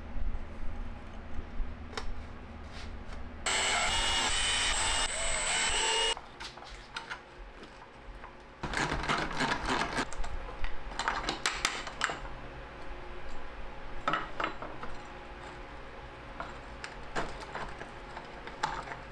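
Small metal hardware clicking and rattling as swivel caster wheels are fitted onto their axle bolts and tightened with a nut driver. A few seconds in, a loud whirring runs for about two and a half seconds and cuts off suddenly. Later comes a busy run of rattling clicks, then occasional light clicks.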